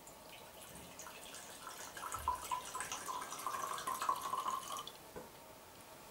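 Pear brandy poured from a glass bottle into a glass tumbler: a trickling, gurgling stream with a ringing note as the glass fills, which stops just before five seconds in.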